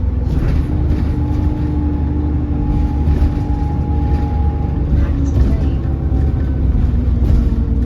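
Alexander Dennis Enviro400 double-decker bus heard from on board while under way: a low engine drone with a steady high whine over it that shifts pitch slightly about five seconds in. It is the vacuum-cleaner-like whine that earns this bus the nickname "Hoover".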